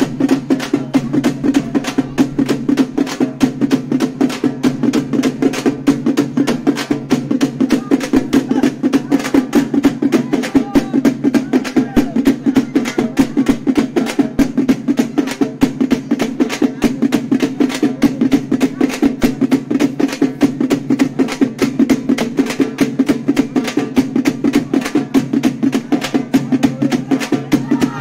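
Drums beaten in a fast, steady rhythm, an even run of sharp strokes several times a second without a break.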